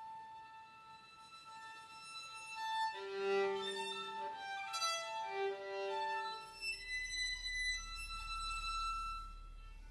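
Solo violin playing a contemporary classical piece: a long held high note, then a run of shorter notes at changing pitches from about three seconds in, and another long high note near the end.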